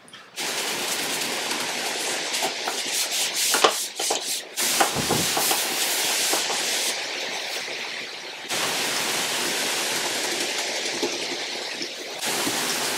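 Paintbrush and microfibre cloth working a thin white paint wash into bare pine: a steady scratchy swishing that shifts abruptly in level a few times.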